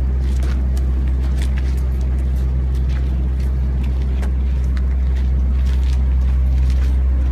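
A steady low engine rumble, like a vehicle engine idling close by, with faint clicks and knocks over it.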